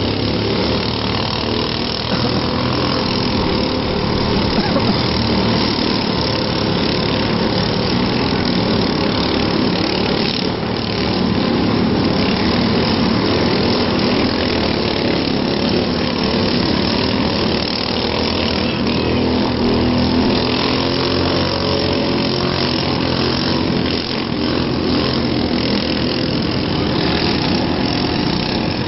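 Engines of demolition derby vehicles running steadily in a loud, continuous din.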